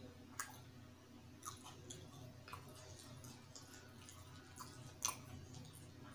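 Faint wet eating sounds: chewing, and bare fingers squishing through saucy noodles and Manchurian, with a few soft, scattered clicks.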